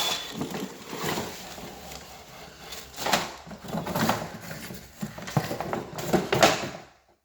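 Rustling and handling of cardboard and plastic packaging as toy farm pieces are pulled out of their box, with several louder rustles.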